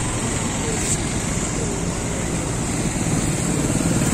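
Steady rush of wind and road noise from a moving motor scooter in traffic, with other vehicles passing close alongside.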